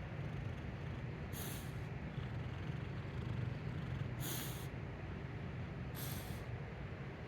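Pit bull snoring in deep sleep: a steady low rumble with a short hiss on the breath about every two to three seconds, three times.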